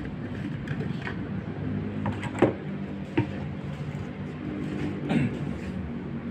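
Plastic paint container and electric spray gun being handled and set down on a table: knocks and clatter, two sharp knocks about two and a half and three seconds in, over a steady low hum.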